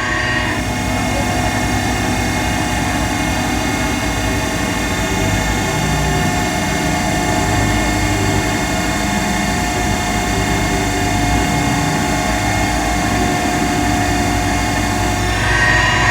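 A crane's engine and hydraulics run steadily while it winches and booms a load, an even drone with a steady hum over it.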